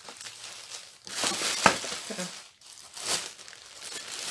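Crinkling of the plastic-wrapped packets of diamond painting kits being handled and lifted out of a parcel, in rustling bursts with one sharp click partway through.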